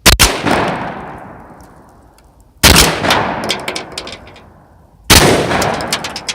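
Three shotgun shots about two and a half seconds apart, firing Winchester AA number 8 birdshot; each report dies away slowly over about two seconds, with scattered sharp ticks in the tail.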